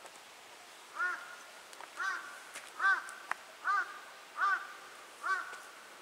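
A crow cawing over and over: six short caws, about one a second, starting about a second in, each with a slight ringing tail.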